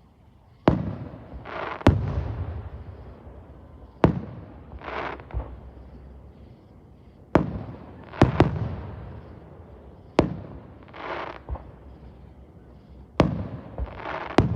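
Fireworks going off: about nine sharp bangs, irregularly spaced a second or a few seconds apart, each followed by a rolling echo. Short hissing bursts come between some of the bangs.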